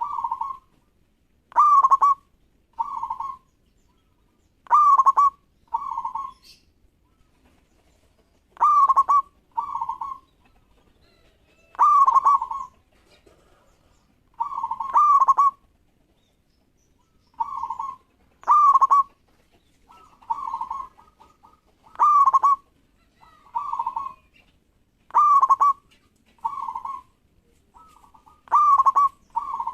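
Zebra dove (perkutut) cooing: short phrases repeated every second or two, each a quick rising note followed by a rolling coo.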